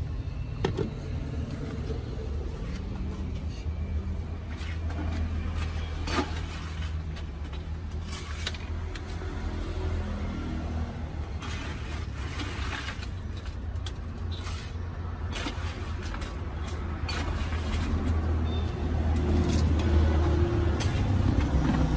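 Steady low rumble of a vehicle engine, with scattered clicks and knocks from plastic container lids and a metal ladle against plastic cups.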